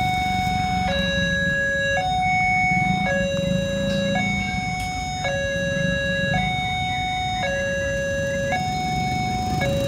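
Railway level-crossing warning alarm sounding a steady high-low two-tone chime, each tone held about a second, over a low rumble. It signals that a train is approaching the crossing.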